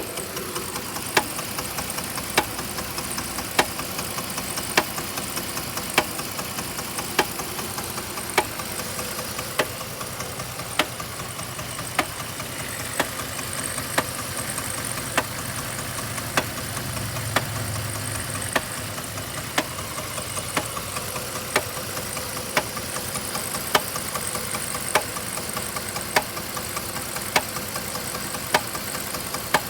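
A 3.7-litre V6 engine running steadily with a sharp knock about every second and a bit, evenly spaced, and fainter ticks in between: an engine knock whose cause the owner cannot diagnose.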